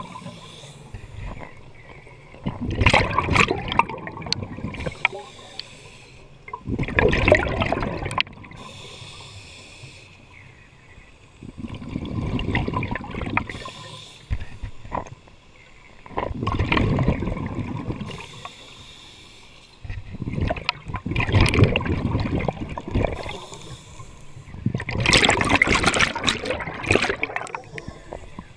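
Scuba regulator exhalations: six bubbling bursts of bubbles, each a second or two long and about four to five seconds apart, the rhythm of a diver breathing, with quieter stretches between.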